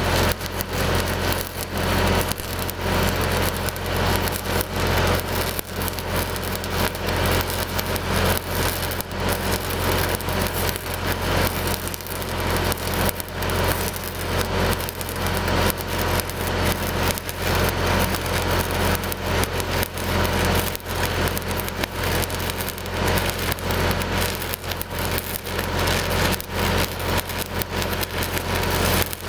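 Stick welding with 3/16-inch 8010 rods: the arc crackles and sputters steadily over the constant hum of a Lincoln SAE 300 HE engine-driven welder running under load.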